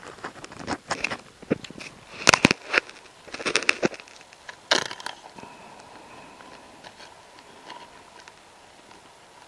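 Handling noises: a run of sharp clicks, knocks and crackles, loudest a little over two seconds in, as ingredients and containers are handled.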